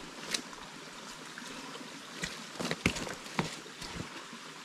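Steady trickle of running water, with several short knocks and squelches of boots moving in the mud, most of them two to three and a half seconds in.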